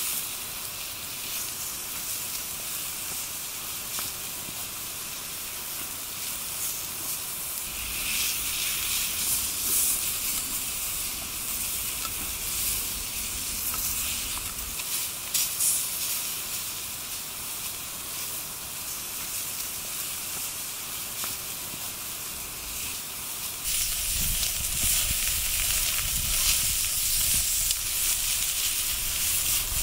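Beef steak sizzling on a black iron griddle plate over a wood fire: a steady hiss with scattered crackles. It gets louder about three-quarters of the way in, with a low rumble underneath.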